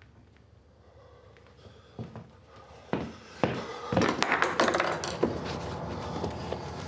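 Quiet room tone broken by a few single knocks, then a dense run of clicks, knocks and rattling about four seconds in, the loudest part, settling into a steady noise.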